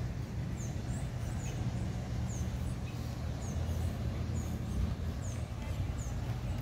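Small birds chirping in the trees, quick high falling notes repeating a little more than once a second, over a steady low rumble of city traffic.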